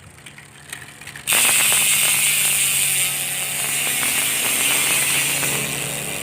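Speedone Soldier six-pawl rear hub freewheeling on a mountain bike. After a few light clicks, a loud, fast ratchet buzz starts about a second in and slowly fades as the wheel spins down, like a cricket.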